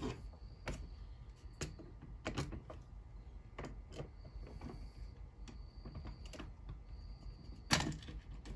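A small Phillips screwdriver turning a screw through a grommet into a Lionel O-gauge flat car. It makes faint, scattered clicks and light scrapes, with a louder knock near the end.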